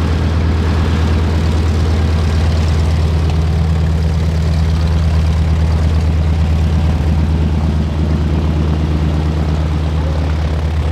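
A North American T-6 Texan (Harvard) taxiing, its nine-cylinder Pratt & Whitney R-1340 Wasp radial engine and propeller running steadily at low power with a deep, even drone.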